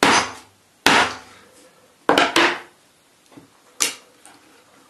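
Hammer blows on a flattened panel pin used as a punch, driving a hole through a thin 0.3 mm brass sheet: about five sharp, irregularly spaced strikes, with a quick pair near the middle.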